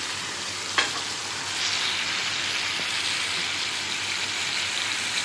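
Chicken, pork and flat green beans sizzling in oil in a paella pan as the sofrito fries, with one sharp knock about a second in. The sizzle gets a little louder about a second and a half in.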